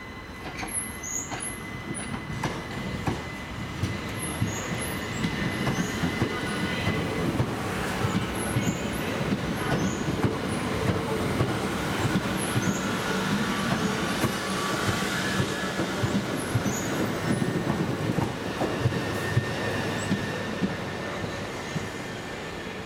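Class 375 Electrostar electric multiple unit arriving and braking. It comes in with a steady squeal and scattered high wheel squeaks and clicks, grows louder to a peak about two-thirds of the way through, then eases as it slows.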